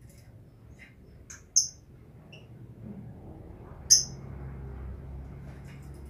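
Lovebirds in a colony aviary giving short, high-pitched chirps: two loud ones, about a second and a half in and near four seconds in, with a few fainter chirps between, over a low steady hum that comes up about three seconds in.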